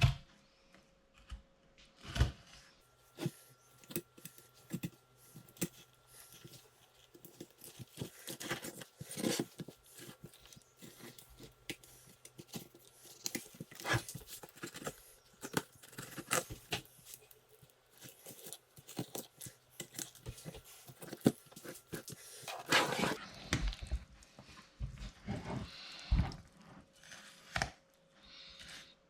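A knife filleting a turbot: irregular scraping, cutting and tearing sounds with sharp clicks of the blade and fish against a board. A faint steady hum sits underneath.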